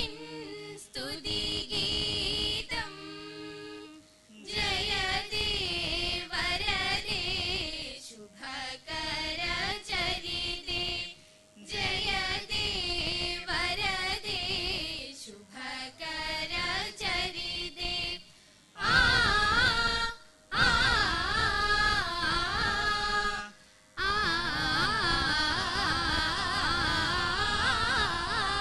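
A group of high-school singers, mostly girls' voices with one boy's, sing an Indian patriotic group song (deshabhakti ganam) together in sustained phrases broken by short pauses every few seconds.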